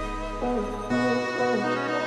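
Background music: a slow song with sustained tones and a short melodic figure repeating about twice a second.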